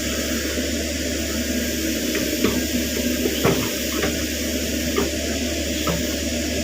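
Caterpillar 307.5 mini excavator running steadily, a constant low hum with hiss, during ditch-cleaning work. About six short knocks come through over it, the first around two seconds in and the rest spread through the middle.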